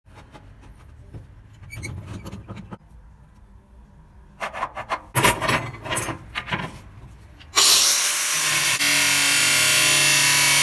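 Knocks and clatter of parts being handled on the workbench, then an angle grinder starts about three quarters of the way in, its whine rising as it spins up, and settles into a steady loud grind as its cut-off disc cuts a steel threaded rod.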